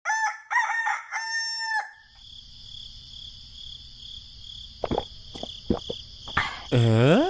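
A rooster crowing in three phrases over about two seconds. After it a steady high tone with a few sharp clicks, and near the end a loud call that sweeps down in pitch and back up.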